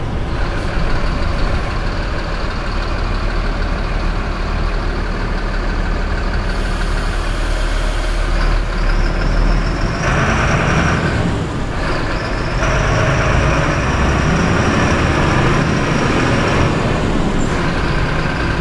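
Mercedes-Benz city bus with a four-cylinder engine, heard from the driver's seat while driving: steady engine and road noise under a thin, high, steady whine. The engine grows louder from about ten seconds in, with a short dip a couple of seconds later.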